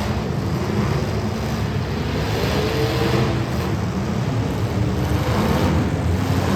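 Street stock race car engines running on a track, their pitch rising and falling as they rev and ease off.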